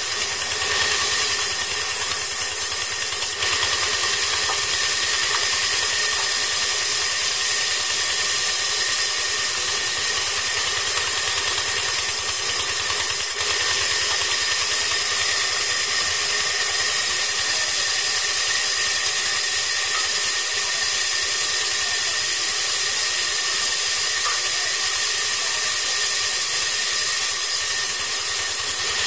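Large sawmill band saw running steadily as it cuts lengthwise through a log: a loud, even, high hiss with a few constant tones.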